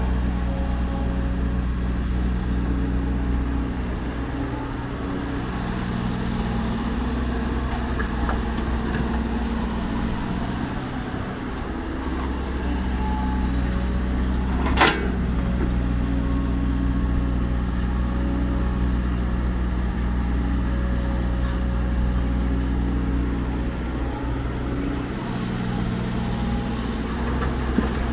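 Heavy diesel engine of construction machinery running steadily with a deep, even hum. One sharp metallic clank about halfway through.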